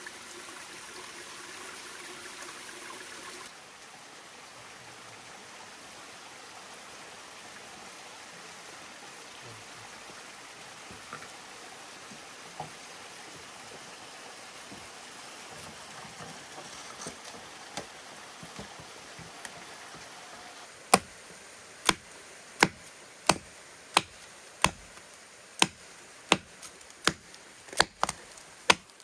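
Water running steadily in the channel, then near the end a machete chopping into a small tree trunk: about a dozen sharp strokes, roughly one and a half a second.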